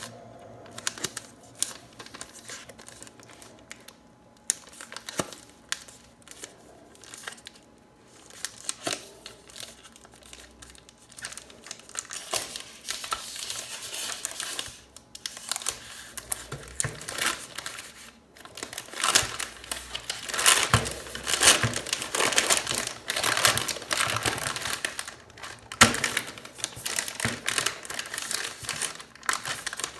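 A chocolate bar's wrapper being peeled and torn open by hand, crinkling and crackling with scattered sharp clicks. It is sparse at first, gets busier about halfway through, and is loudest in the last third.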